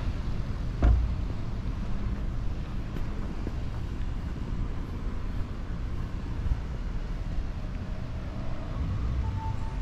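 Outdoor street noise: a steady low rumble of road traffic with wind on the microphone, one bump about a second in, and a short high beeping near the end.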